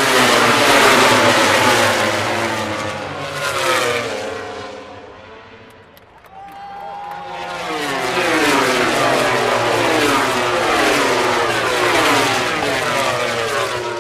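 MotoGP racing motorcycles' four-cylinder engines at high revs going past in two waves. One bike or small group fades out about five seconds in, then a larger pack follows. Each bike's engine note falls in pitch as it goes by.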